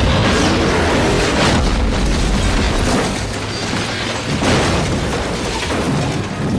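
Car crash in a film sound mix: a car flipping and rolling over, with heavy booming impacts and crunching, the loudest about four and a half seconds in, over a dense roar and music.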